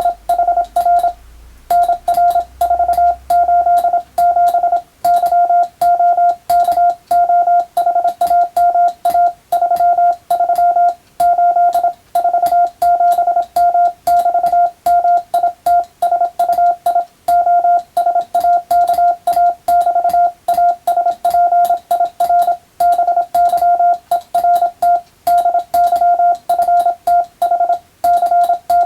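Morse code (CW) sent by hand on a telegraph key, heard as a single steady high-pitched beep keyed on and off in quick dots and dashes, with short pauses between groups of characters.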